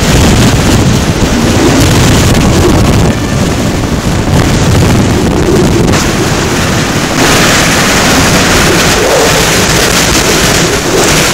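Hurricane-force Bora wind buffeting the microphone of a moving car, a loud rushing noise with heavy low rumble. It turns harsher and hissier about seven seconds in, as a stronger gust hits.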